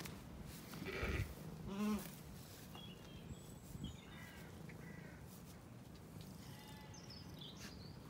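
A sheep bleats twice, about one and two seconds in, then small birds chirp faintly a few times.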